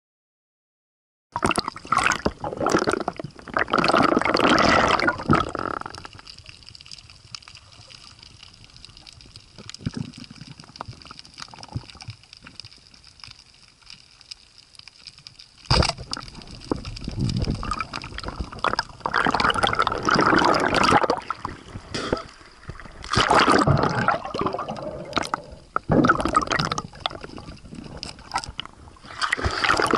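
Water gurgling and bubbling around an underwater camera during a spearfishing dive, coming in loud surges with quieter stretches between. It begins suddenly about a second and a half in.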